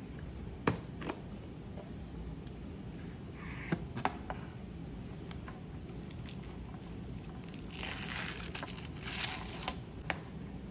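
A Bentgo Kids plastic lunch box handled as it is unlatched and opened: a few sharp plastic clicks and taps, and short bursts of crinkly rustling of thin plastic film in the middle and again near the end.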